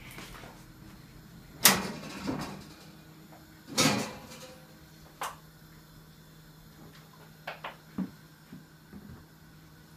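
Kitchen clatter: a few sharp knocks and clunks of things being handled at a kitchen counter, the loudest about one and a half seconds in and another near four seconds, then lighter taps near the end, over a faint steady hum.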